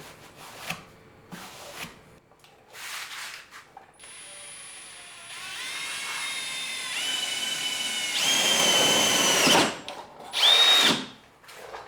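Power drill boring a hole through the steel body tub of a Jeep Wrangler LJ. After a few light knocks, the motor whine starts about four seconds in, steps up in pitch and is loudest as the bit cuts through, stops, then gives one short final burst near the end that winds down.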